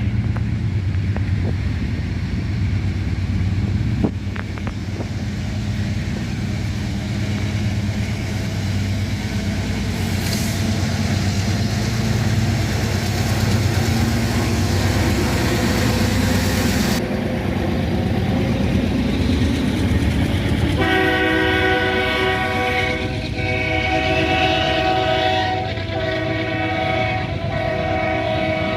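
Two freight diesel locomotives running under power as they accelerate, a steady low engine rumble with a high hiss from about ten to seventeen seconds in. About two-thirds of the way through, the multi-chime air horn sounds in several long blasts with short breaks.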